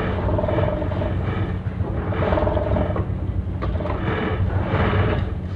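Ship's engine running with a steady low hum while the vessel is under way, with a rushing noise that swells and fades over it.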